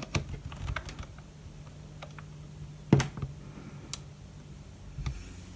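Scattered light metal clicks and taps of a folding pocket multi-tool being handled, its tools folded in and out. Several small clicks come close together at first, and the sharpest click falls about three seconds in.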